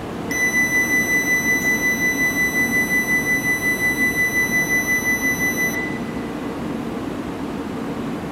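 Shinkansen door-closing warning buzzer: one steady high electronic tone with a fast warble, about five seconds long, cutting off suddenly, signalling that the doors are closing. A steady low hum runs underneath.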